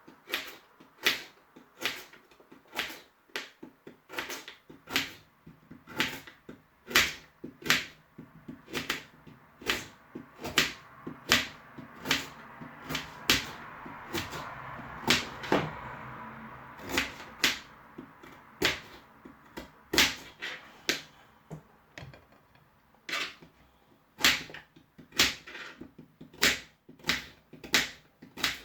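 Kitchen knife chopping a carrot on a chopping board: a long run of sharp knocks, roughly two a second and unevenly paced. A steady hiss runs under the chopping for several seconds in the middle.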